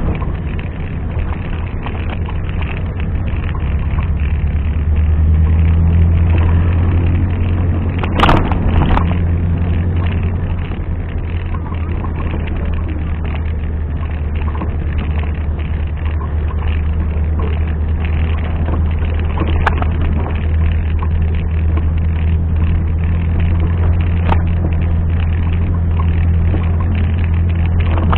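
Off-road 4x4's engine running steadily with a deep hum, swelling louder for a few seconds about a third of the way in. There is a single sharp knock about eight seconds in.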